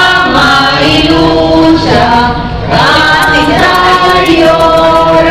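A choir singing in long held notes, with a brief pause between phrases about two seconds in.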